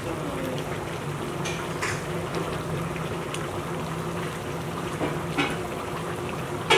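Dimlama stew of chicken, potatoes and tomatoes simmering in its pot, the broth bubbling steadily with a few faint pops over a steady low hum. A sharp knock comes at the very end.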